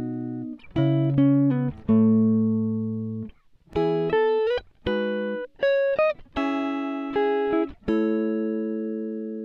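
Background music: plucked guitar notes and chords struck about once a second, each ringing out and slowly fading.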